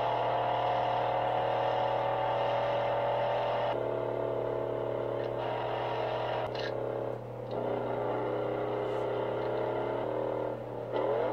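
Muscle car engine running hard at speed in a car chase, its pitch changing in steps as the revs shift, with a brief dip about seven seconds in and a rising rev near the end.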